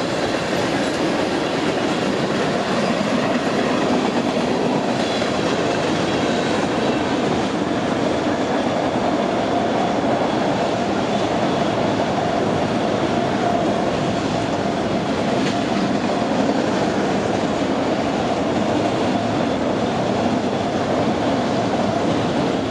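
A train passing close by, its wheels rolling steadily over the rails with a continuous clickety-clack.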